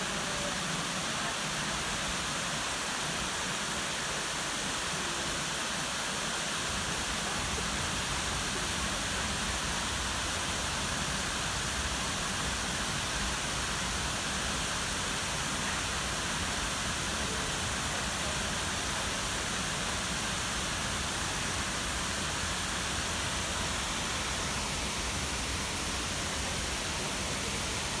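Shiraito Falls, many thin cascades pouring off a cliff into a rocky stream: a steady, even rush of falling water. A low rumble joins about six seconds in.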